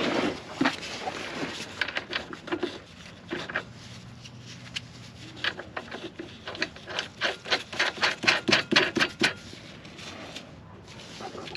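Hand work on the towbar's bolts and washers: scattered knocks and scrapes, then a quick run of regular sharp clicks from about six to nine seconds in.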